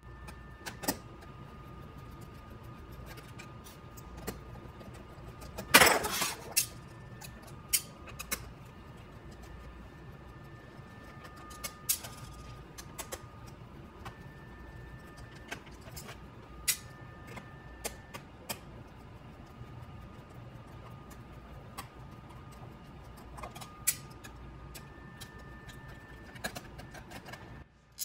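Small scattered clicks and taps of a hand screwdriver backing screws out of a laptop's plastic bottom case, and of the screws being handled, with one louder clatter about six seconds in. A faint steady hum lies underneath.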